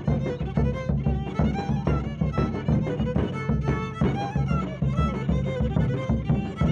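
Csángó folk dance tune played on fiddle, a quick melody over a steady, evenly pulsing low accompaniment.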